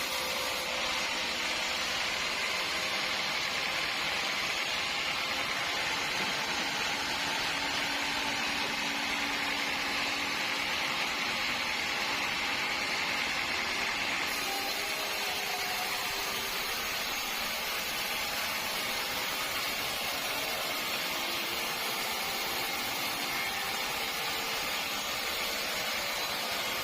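Sawmill machinery running steadily, an even hiss with no breaks or strikes.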